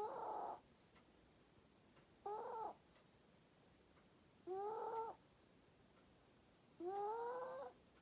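A sleeping pet snoring: on each breath a short whistling squeak that rises in pitch, four times, about every two and a quarter seconds.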